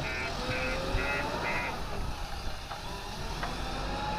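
Reversing alarm on heavy earth-moving machinery beeping about twice a second, stopping a little under halfway through, over a heavy diesel engine running with a slowly rising whine.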